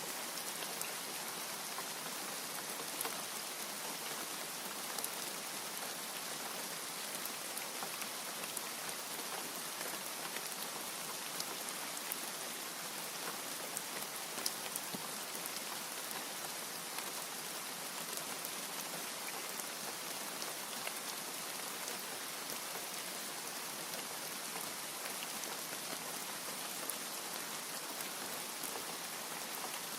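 Steady heavy rain falling, with many small drop ticks scattered through a constant hiss.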